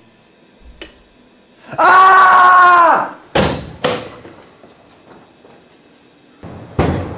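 A loud held yell lasting about a second, then two sharp thuds about half a second apart, with another thud near the end.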